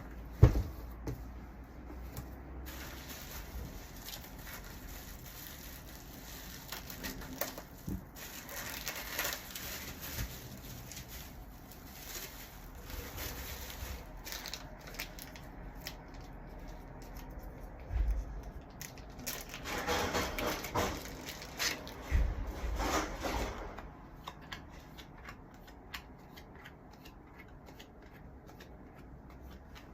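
Packaging being handled during an unboxing: intermittent rustling and rubbing, with a sharp knock about half a second in and a thump about 18 seconds in.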